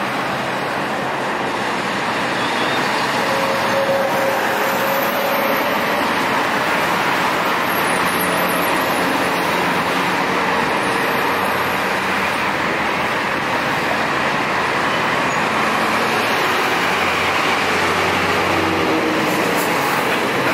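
Continuous road traffic noise from a busy multi-lane road, with the engines and tyres of cars and buses blending into a steady sound. A deeper engine hum from a heavier vehicle passing comes late on.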